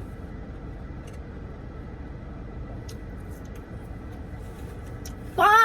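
Steady low hum of a car's air conditioning running in the cabin, with a few faint mouth clicks from chewing partway through. Near the very end a woman's voice breaks in with a loud exclamation.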